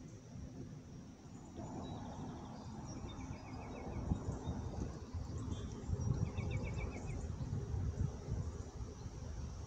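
A bird gives a short, rapid trill three times and insects drone steadily from the wooded banks, over a louder, uneven low rumble.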